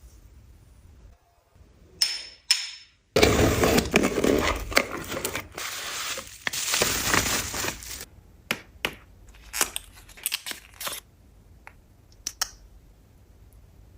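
Packaging being handled: about five seconds of dense rustling and crinkling, then scattered light clicks and taps.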